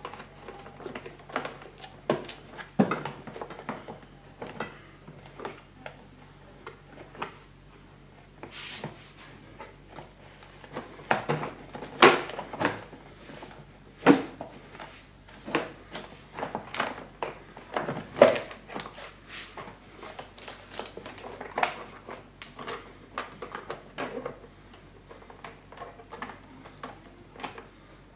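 Hard plastic lawnmower cover being handled and pressed into place: irregular clicks, knocks and rustles, with a few louder knocks around the middle.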